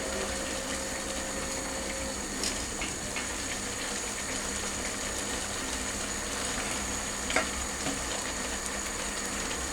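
A pot of soup simmering on the stove, a steady bubbling hiss, with a few light clinks of a spoon against the pot as pieces of fish are lifted out.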